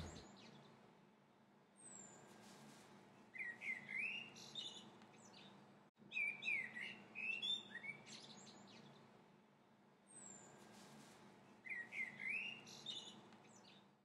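Birds singing faintly: clusters of short chirps and quick rising and falling whistles every few seconds, over a faint low steady hum.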